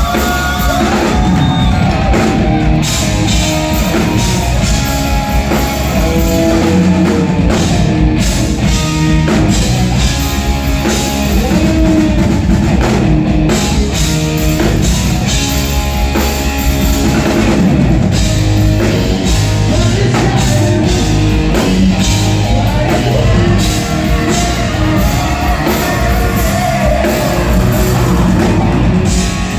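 Live rock band playing loud, recorded from the crowd: an electric guitar solo with bent, gliding notes over drums and bass.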